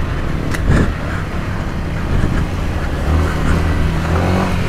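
Yamaha motocross dirt bike engine running under load on the trail, with a couple of sharp knocks in the first second. About three seconds in, the engine settles into a steady, even pitch.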